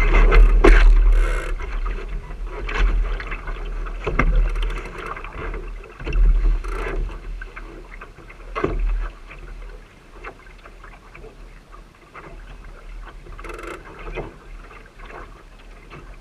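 Sailing dinghy under way: wind rumbling on the deck-mounted camera's microphone and water washing along the hull, with scattered knocks and clicks from the boat's fittings and lines. The rumble is heaviest in the first few seconds and dies down after about ten seconds.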